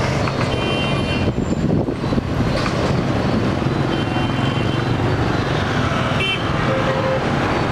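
Dense motorbike and scooter traffic running past, engines and tyres in a steady mix, with short horn beeps three times.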